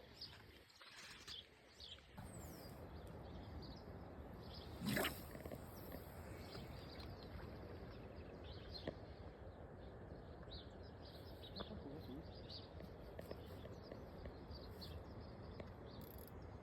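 Steady outdoor background noise with small birds chirping on and off, and one brief louder sweeping sound about five seconds in.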